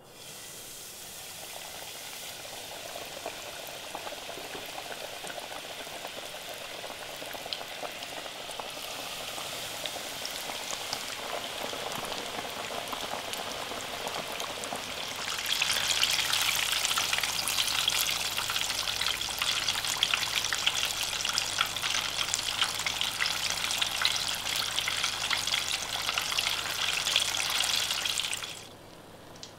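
Battered chicken deep-frying in hot oil in a stainless steel pot: a steady sizzle with dense crackling, slowly growing louder. It jumps to a much louder, busier sizzle about halfway through and cuts off shortly before the end.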